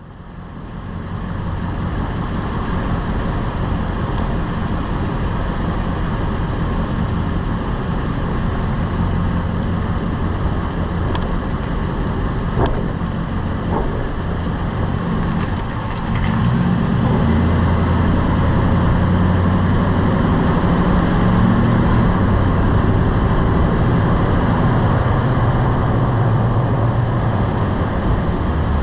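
Lifted pickup truck on the move with steady road and drivetrain noise, which gets louder a little past halfway. A few short knocks come in the middle.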